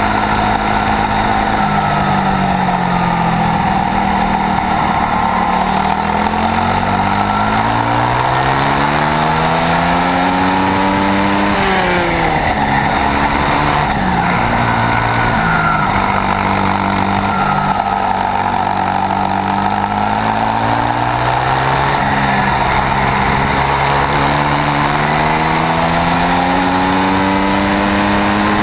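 Onboard sound of a Swissauto 250 four-stroke twin kart engine at racing speed, its pitch falling off into corners and climbing again under acceleration, with a sharp drop about twelve seconds in. A steady rushing of wind and road noise runs underneath.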